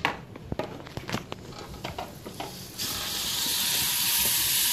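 A few light knocks of handling, then about three seconds in a sudden loud sizzle as a seasoned crappie fillet is laid into hot butter in a frying pan. The sizzle keeps on steadily.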